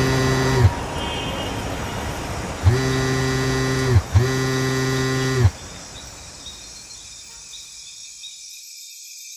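A deep horn sounding in long blasts, each about a second and a half, over a steady rumble: one is already sounding and stops under a second in, then two more follow close together about three and four seconds in. The rumble then drops away to a faint, steady high hum.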